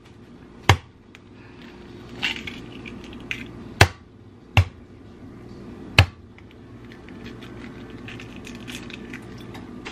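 Eggs being cracked on a hard edge: four sharp knocks, two of them close together near the middle, with a little light shell and kitchen clatter in between.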